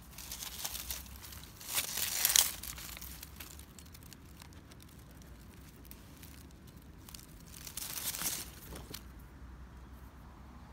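Leaves and plant stems rustling and crinkling as they are brushed aside at close range, in two bursts: a louder one about two seconds in and a shorter one near eight seconds.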